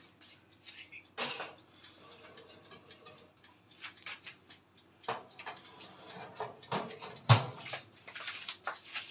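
Electric countertop oven's timer dial ticking in short, uneven clicks, with a couple of louder knocks; the loudest is a sharp knock about seven seconds in.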